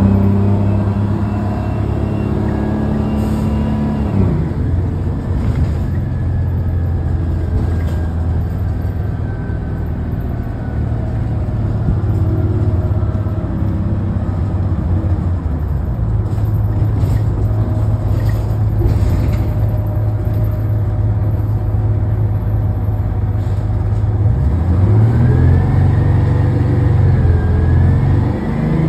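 A 1975 AM General bus is running, heard from on board. Its low drone drops away about four seconds in, holds steady for a long stretch, then rises in pitch near the end as the bus speeds up again.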